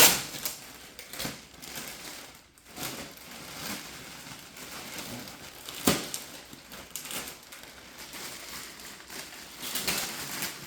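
Cardboard packaging being handled and opened by hand: crinkling and rustling with scattered knocks, the sharpest one about six seconds in.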